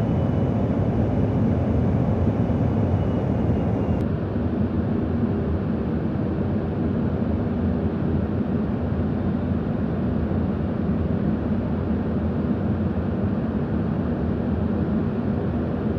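Steady cabin noise of a KC-135 Stratotanker in flight: the drone of its jet engines and rushing air, heard from inside the aircraft. About four seconds in the sound changes abruptly and becomes slightly duller.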